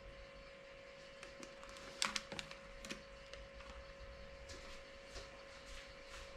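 Scattered short clicks, taps and rustles of objects being handled, the loudest cluster about two seconds in, over a steady faint electrical hum.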